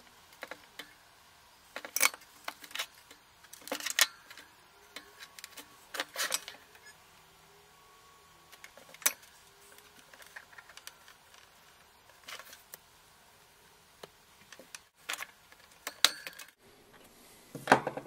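Scattered light clicks and short clatters of small hand tools and small parts being handled on a workbench, a second or two apart.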